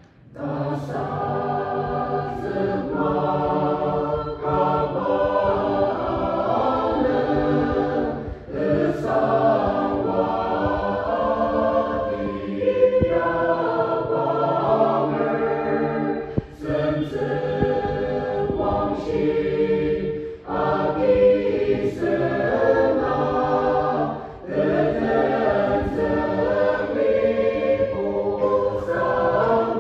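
Mixed choir of women and men singing a hymn together, beginning just at the start, with short breaks between phrases.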